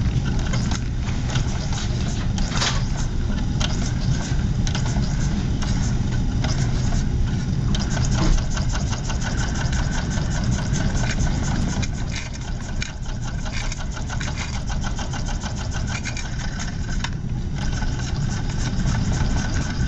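Small model steam engine running steadily with a fast, even beat. It has been hooked up to drive a small toy but does not have enough power to turn it.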